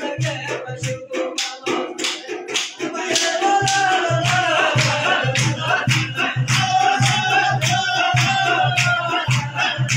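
Men singing a Shina bazam folk song in a group, kept in time by steady hand-clapping and low rhythmic beats. The singing gets louder about three seconds in.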